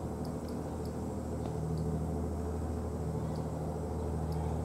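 A motor engine running steadily, a low even drone, with faint short high ticks scattered through it.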